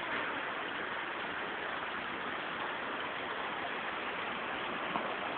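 Steady rushing hiss of a waterfall splashing down a rock face.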